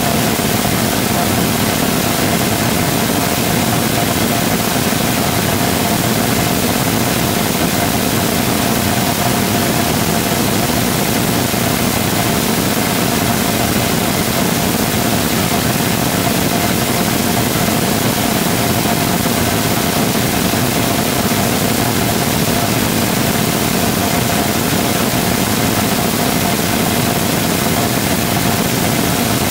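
NASA's 3D-printed rotating detonation rocket engine combustor in steady firing: a loud, unbroken rushing noise of the exhaust, with a steady tone held in the middle of it.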